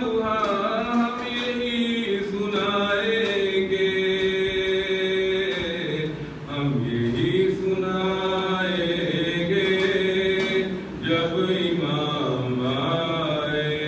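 A man's solo voice chanting a munajat qasida, a devotional supplication poem, unaccompanied, in long held, wavering notes. He breaks briefly for breath about six and a half seconds in and again near eleven seconds.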